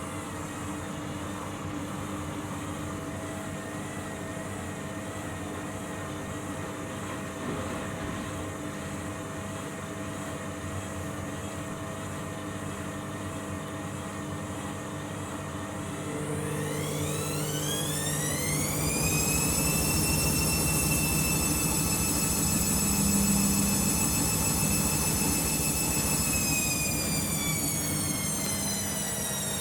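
Candy Grande Vita 7 kg washing machine in its final spin: a steady motor and drum hum, then a bit over halfway through the motor's whine rises in pitch as the drum speeds up, and holds as a high, steady whine at spin speed, getting louder.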